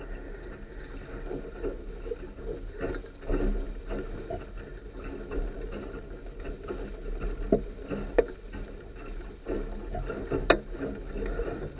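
Water rushing and splashing along the hull of a Sunfish sailboat under way, with a few sharp knocks, the loudest about ten seconds in.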